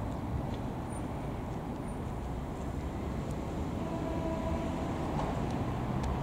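Outdoor city traffic ambience: a steady low rumble of road traffic with cars passing near the square.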